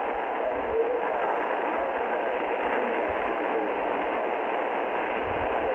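Shortwave receiver in upper-sideband mode on 6.955 MHz giving a steady hiss of static, with a weak station faintly wavering under the noise.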